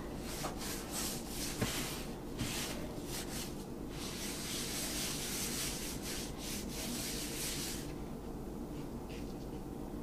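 Plastic-gloved hands rubbing dry seasoning into a raw pork shoulder. A run of short rubbing strokes comes first, then a longer continuous rubbing from about four to eight seconds in.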